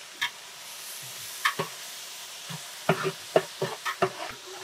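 A long metal spoon stirring water and chopped herbs in a large aluminium cooking pot, with repeated knocks and scrapes against the pot that come thickest in the second half, over a steady sizzling hiss.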